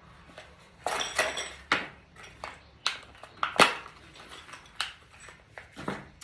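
Metal hooks and glass bird-feeder parts being handled on a work surface: a series of separate clinks and knocks, a brief ringing cluster about a second in, and the sharpest knock a little past the middle.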